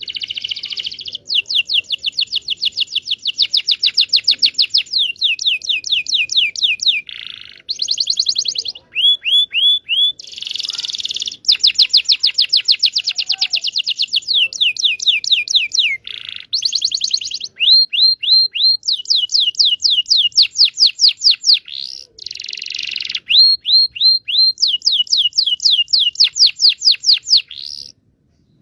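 Canary singing a long song made of fast trills: runs of rapidly repeated high notes, broken now and then by short buzzy notes.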